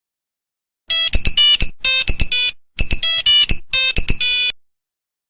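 Nokia mobile phone ringtone: a short electronic melody of bright, beeping notes, played twice in a row with a brief gap between. It starts about a second in.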